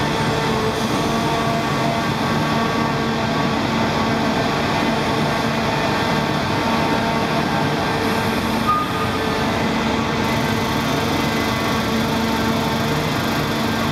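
The Great Elephant of Nantes walking machine running steadily: the drone of its diesel engine and hydraulics, a held machine hum that does not change as the legs swing. One brief knock about nine seconds in.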